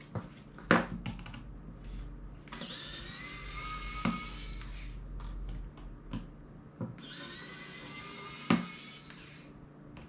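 Small electric precision screwdriver whirring in two runs, about three seconds and then about two seconds, backing out tiny screws from a small MP3 player's case. Sharp clicks of the tool and parts come between the runs, the loudest about a second in.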